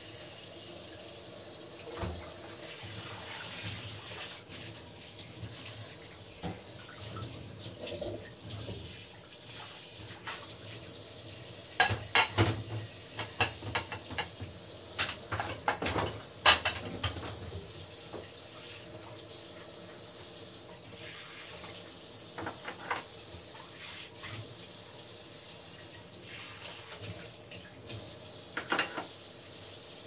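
Dishes being washed by hand with a sponge in an oval washing basin in a stainless steel sink: tap water running steadily while dishes and tableware clink and clatter against each other and the sink, with a busy run of clatters around the middle.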